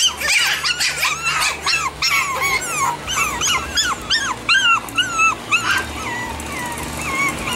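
Chihuahua puppies yipping and squealing while they play-fight: a rapid run of short, high cries, two or three a second, thinning out to a few softer yips near the end.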